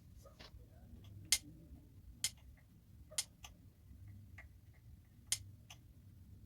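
Sharp clicks or light taps, irregular, roughly one a second, over a faint low hum.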